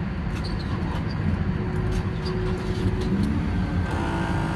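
A motor vehicle engine running steadily at close range, with a few light clicks. A set of steady tones comes in about four seconds in.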